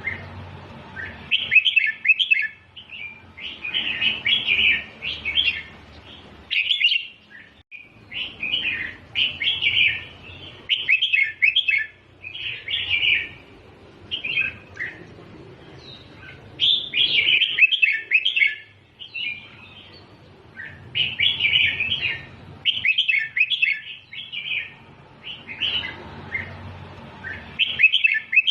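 Red-whiskered bulbul singing short, quick warbling phrases over and over, a new phrase every second or two with brief pauses between them.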